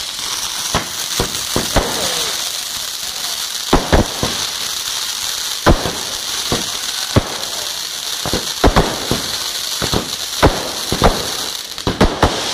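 Fireworks display (Kerala vedikkettu): a steady hiss and crackle of burning fireworks, punctuated irregularly by well over a dozen sharp bangs from firecrackers and aerial bursts, several close together near the end.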